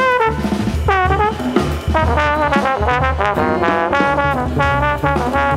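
Free jazz improvisation led by a trombone, which plays a swooping slide about a second in and then a run of short notes. Electric guitar, a drum kit and congas play underneath.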